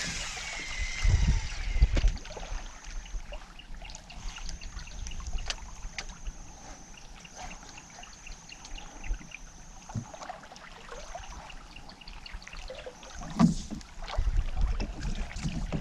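Water lapping against a small boat's hull, with knocks and low rumbles of handling near the start and again near the end, and scattered faint ticks. A thin high tone runs through the first two-thirds.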